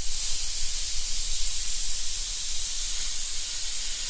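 Plasma cutter running as it cuts through a car's steel floor pan: a loud, steady, mostly high-pitched hiss of the arc and compressed-air jet.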